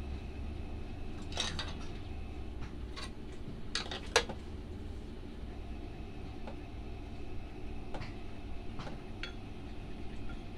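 Light metallic clicks and clinks of hand tools and thin stainless steel parts being handled on a workbench, scattered and irregular, the sharpest about four seconds in, over a steady low hum.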